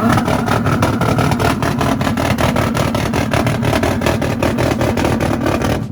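Car engine and exhaust revved up and held at high revs, with a fast, even stutter running through the note. It cuts off suddenly near the end.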